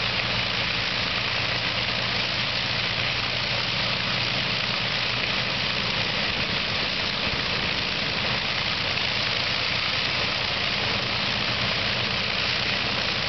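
Avro Lancaster's Merlin V12 piston engines idling on the ground during engine start-up, a steady, even drone.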